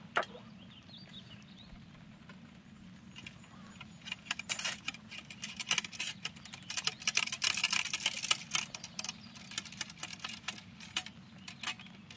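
Small metal parts of muzzle-loading gear clicking and jingling as they are handled. There is one click near the start, then a dense, irregular run of clicks and rattles from about four seconds in.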